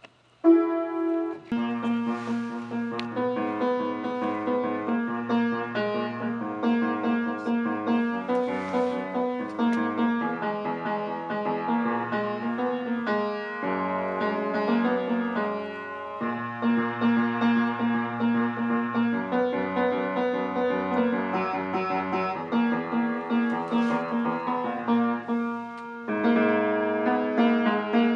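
Piano-voiced keyboard playing a continuous piece, with a bass line under a repeating melody; the playing starts about half a second in.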